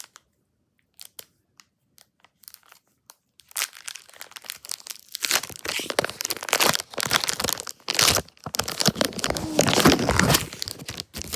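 Foil Pokémon booster pack wrapper being crinkled and torn open. A few faint clicks come first, then from about four seconds in there is dense crackling and tearing of the foil, loudest near the end.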